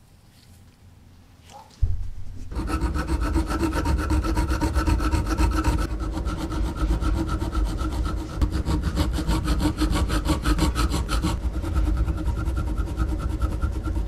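Flat hand file rasping against a steel nail clamped in a vise. It starts suddenly about two seconds in and goes on steadily.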